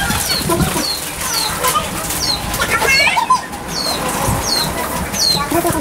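A small bird repeating a short high chirp that falls in pitch, about three calls every two seconds, over steady rain. A few other brief calls come in about three seconds in.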